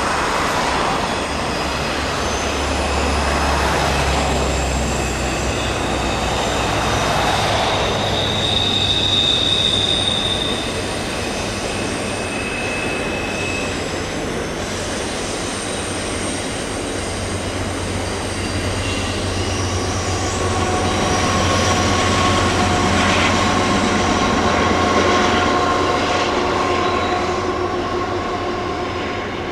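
Canadian Pacific freight train's cars rolling past with a steady low rumble, wheels squealing at several steady high pitches that come and go over it.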